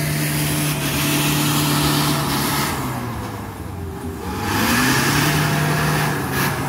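Off-road 4x4 engine running hard under load, its revs sagging and quietening about halfway through, then climbing again.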